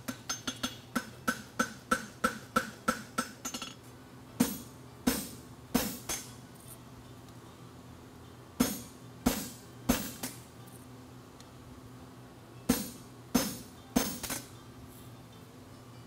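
A farrier's hammer striking a hot steel draft horseshoe on an anvil while shaping it, each blow with a metallic ring. A quick run of blows, about three a second, lasts the first three seconds or so, then slower single and paired blows spaced out through the rest, with a steady low hum underneath.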